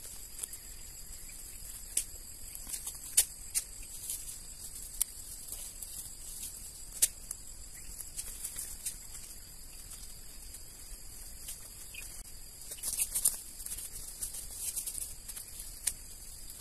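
Weeds and grass being pulled up by hand, with sharp snaps and crackles of stems and roots every second or two and a busier stretch of rustling and tearing about thirteen seconds in.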